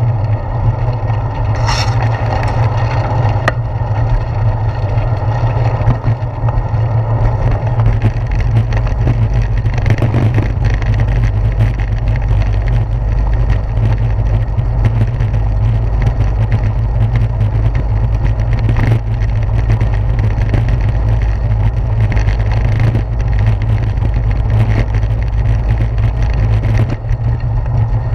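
Bicycle riding over a brick-paved street, heard through a handlebar-mounted GoPro Hero 4: a loud, steady low rumble with constant small rattling knocks from the bumpy pavers.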